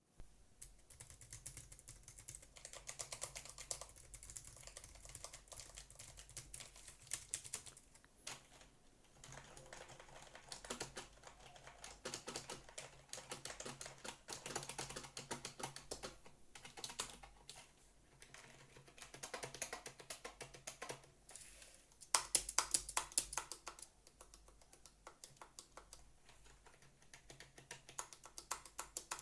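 Typing on computer keyboards: runs of rapid key clicks separated by short pauses, with a louder, sharper run of clicks about three quarters of the way through.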